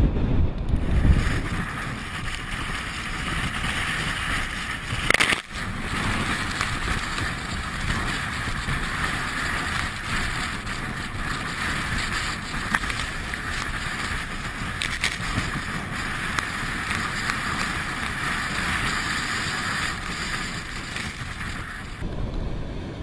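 Heavy storm surf breaking on rocks: a steady rushing hiss of waves and spray. Low wind rumble on the microphone at the start and again near the end, with a brief drop-out just after five seconds in.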